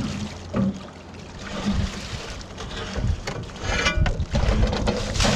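Water sloshing and pouring off a rusted wheelbarrow as it is hauled by rope up out of a river against a concrete quay wall, with a couple of knocks of metal on the wall at the start. Wind rumbles on the microphone.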